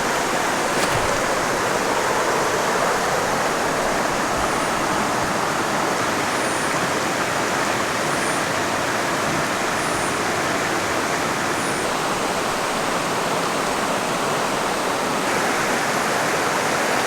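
Mountain stream rushing over rocks, a steady, even rush of water. A faint high chirp repeats about every two seconds through the middle.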